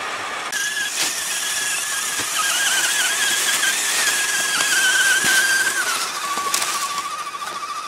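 Electric motor and gearbox of an RC scale off-road truck whining, the pitch wavering with the throttle and dropping lower about six seconds in. There are a few short clicks.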